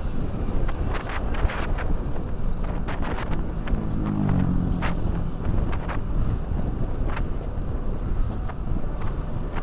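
Riding a motorcycle on the road: wind buffeting the microphone over a steady low engine and road rumble, with scattered knocks from bumps. An engine note rises and swells in the middle, then fades back into the rumble.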